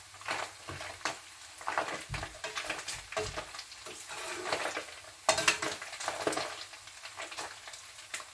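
Omena (Lake Victoria sardines) sizzling as they fry in a pan of oil, with scrapes and clinks of a slotted metal spatula as the golden fish are lifted out onto a plate. A sharper clatter comes about five seconds in.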